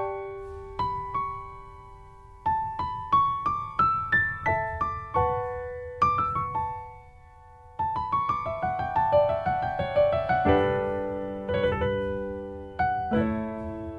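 Background piano music: a gentle melody of single struck notes that ring and fade, with a short pause about halfway and fuller held chords in the last few seconds.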